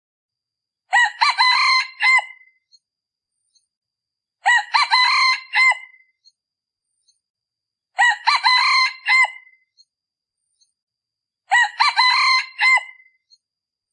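A male decoy junglefowl (ไก่ต่อ) crowing four times, about three and a half seconds apart. Each crow is short and clipped. This is the call used to lure wild cock junglefowl in the cool season.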